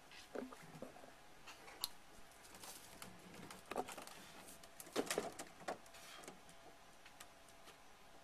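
Faint, scattered knocks and scuffs from handling a long pontoon hull carried overhead, mixed with footsteps on soft muddy ground. The knocks cluster about four and five seconds in.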